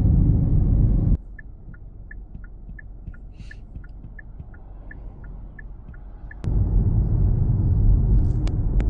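Car cabin rumble while driving, which cuts out suddenly about a second in. A quieter stretch of about five seconds follows with a light, even ticking about three times a second. The low rumble comes back suddenly for the last few seconds.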